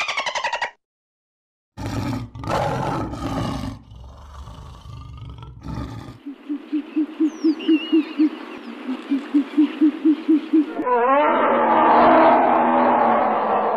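A series of different animal calls cut one after another: a low rough call, then a run of rapid, evenly spaced pulsing calls, then a louder noisy call.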